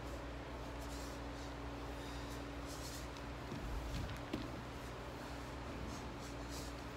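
A dancer's sock-clad feet scuffing and sliding on a hardwood studio floor, with a dull thump about four seconds in as she drops to her knees, over a steady low room hum.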